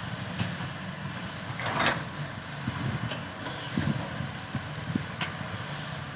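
Caterpillar 320C hydraulic excavator's diesel engine running steadily, with a brief hiss about two seconds in and a few scattered knocks.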